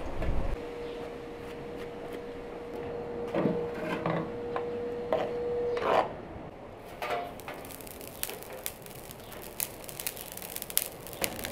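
Handling and a few knocks over a steady tone for several seconds, then a dense patter of small ticks as salt is poured in a stream onto an iron plate on the stove. The salt layer keeps the tomato paste from splashing or catching on the bottom of the pan.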